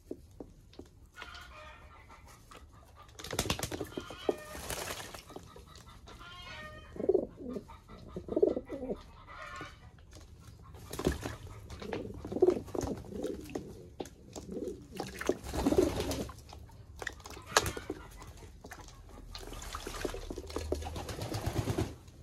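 English Modena pigeons cooing in low, repeated coos, with several noisy bursts of splashing and wing flapping as they bathe in water.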